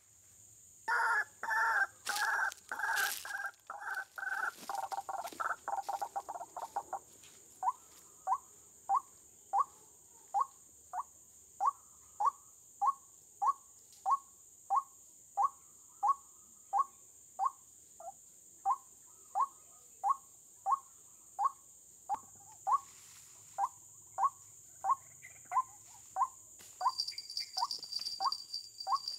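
White-breasted waterhen calls, played from a speaker as a trapping lure. For the first six seconds the calls come as a fast jumble, then they settle into a single short note repeated about twice a second. A steady high insect-like whine runs underneath.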